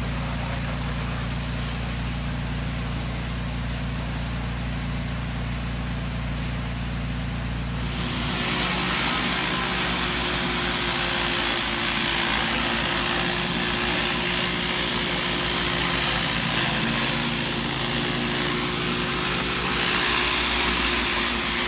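Pressure washer engine running steadily while water is sprayed. About eight seconds in, a louder, even hiss takes over: the spinning high-pressure jets of a flat surface cleaner blasting a brick porch step, with the engine still running underneath.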